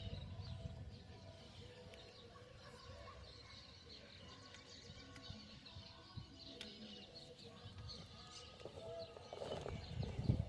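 Birds chirping faintly in the background over low outdoor ambience, with a louder rustle near the end.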